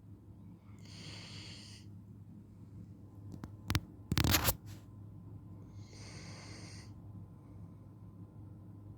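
Black Labrador retriever snoring in its sleep: two slow, hissing snore breaths about five seconds apart, with a few clicks and a short loud burst of noise a little past the middle.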